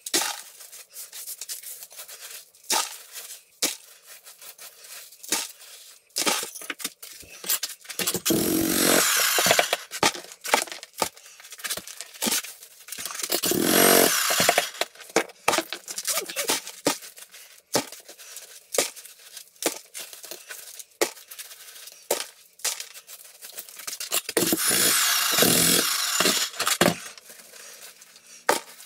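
Electric demolition hammer chiselling into a concrete floor slab in three runs of about two to three seconds each. In between, broken concrete chunks clatter and knock as they are gathered up and dropped into a plastic bucket.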